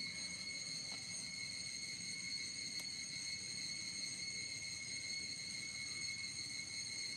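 Steady, high-pitched insect drone made of several held tones. A single faint tick comes a little under three seconds in.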